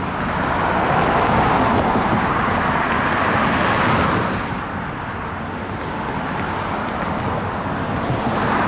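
Road traffic: a car passing close by, swelling and fading over the first four seconds, with another vehicle approaching near the end.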